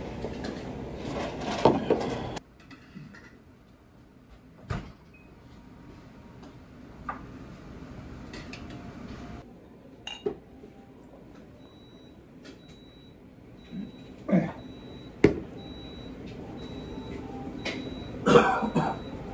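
Scattered sharp knocks of a glass beer bottle and glass on a counter over quiet room sound. From about twelve seconds in, a short high electronic beep repeats roughly every three-quarters of a second.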